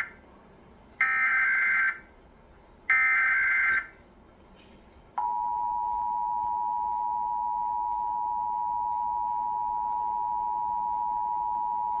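Emergency Alert System tones playing from a television: the tail of one SAME header data burst, then two more buzzy bursts, each about a second long with a second's gap between them. About five seconds in, the steady EAS two-tone attention signal (853 and 960 Hz) starts and holds. Together they open a national EAS test alert.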